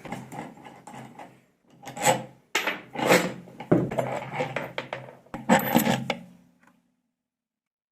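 Scraping and rubbing with a few sharp knocks, in uneven bursts, as washing-machine bearings and a shaft seal are worked into place. It stops about seven seconds in.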